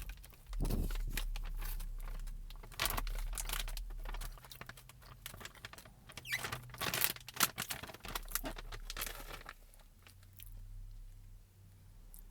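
Crinkling and rustling of plastic food packaging being handled, with irregular clicks and taps, busiest in the first few seconds and again in the middle, then dying down.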